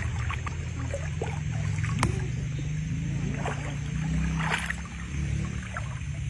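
Bare feet wading through shallow river water, with intermittent sloshes and small splashes over a steady low rumble.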